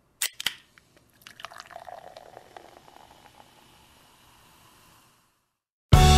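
Beer poured into a glass: two sharp clicks at the start, then the liquid pouring and fizzing with small drips, fading away over a few seconds. Music comes in just before the end.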